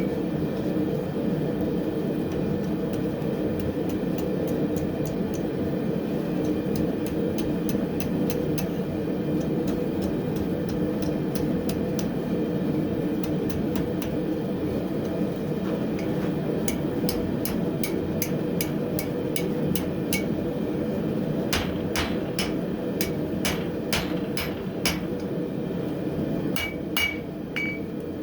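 Hand hammer striking hot coil-spring steel on an anvil while the handle of a flint striker is forged, the anvil ringing with each blow. The blows come sparsely at first, then in quick runs of about three a second in the second half, over the steady roar of the forge.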